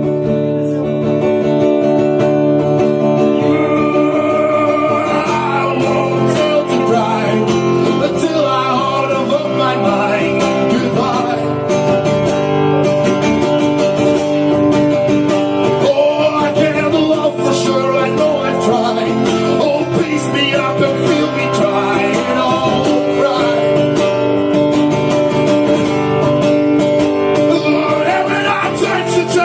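Live music: an instrumental break of a folk-style song, with guitar chords under a wavering lead melody line.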